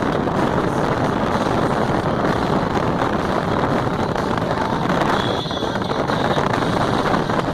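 A motor vehicle running steadily with heavy wind noise buffeting the microphone.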